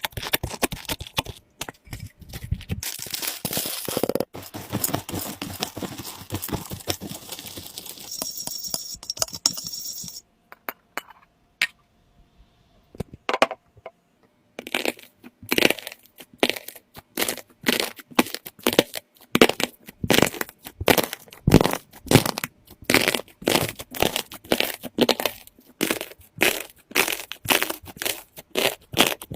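Slime being squeezed and pressed by hand for ASMR: dense crackling and clicking, a pause of a few seconds near the middle, then a quick series of separate crunchy pops, about two or three a second.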